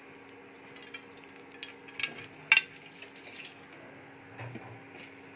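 A utensil clinking and scraping against an aluminium kadai while a little oil sizzles. One sharp clink about two and a half seconds in is the loudest.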